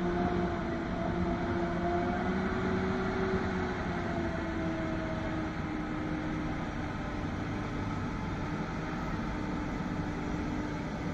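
Fully loaded Tata truck's diesel engine running under load: a steady drone with a held tone that drifts slightly in pitch.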